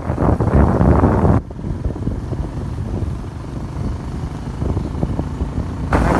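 A motorbike on the move: engine running under wind buffeting the microphone. The wind noise drops sharply about a second and a half in and comes back loud near the end.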